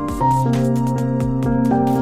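Background music: held electronic chords over a steady low beat, moving to a new chord shortly after the start.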